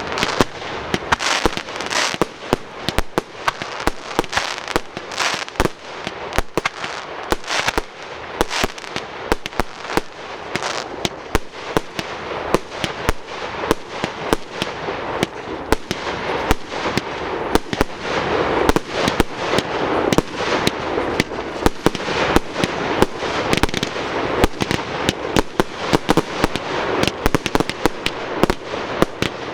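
Fireworks display: a dense, continuous barrage of bangs and crackling bursts, many a second, with no let-up.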